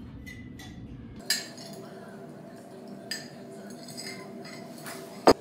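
Ice clinking in a cup of iced latte as it is handled, with a few separate clinks and one loud, sharp knock near the end.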